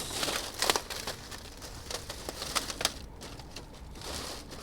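Plastic crinkling with a series of light clicks and knocks as a plastic container and the packaged frozen seafood are handled and set level.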